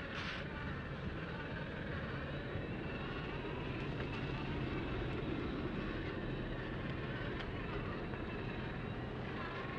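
Furitek Cayman Pro 1/24-scale RC crawler driving: the small electric motor and gear train run with a steady whine over a low rumble.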